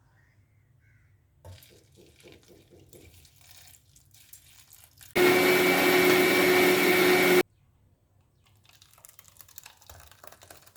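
Electric kitchen mixer grinder running in one loud, steady burst of about two seconds, starting and stopping abruptly, grinding the spices into masala paste for pulimunchi. Faint clinks and handling noises come before and after it.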